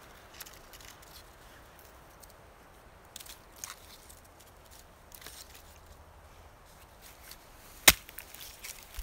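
Dry twigs and charred wood rustling and clicking as they are handled and laid into a campfire, with one sharp crack near the end.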